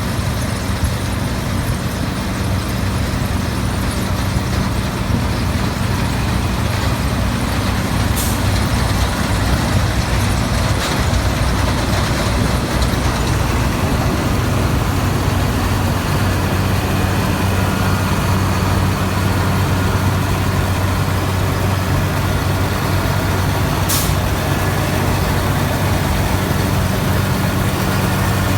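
New Holland TX68 combine harvester's 9.6-litre Iveco six-cylinder turbodiesel idling with a steady low hum. Two brief clicks sound over it, one about eight seconds in and another about sixteen seconds later.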